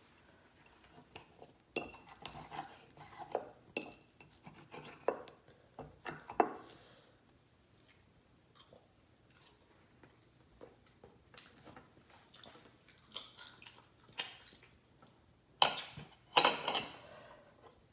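Cutlery clicking and scraping against a plate at irregular moments, with a busier run of clinks near the end, as a tortilla crepe is cut and eaten.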